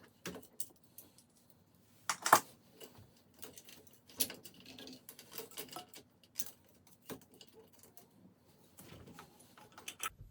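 Scattered metallic clicks and clinks of hand tools on bicycle parts as a rear derailleur is removed, with a sharper knock about two seconds in.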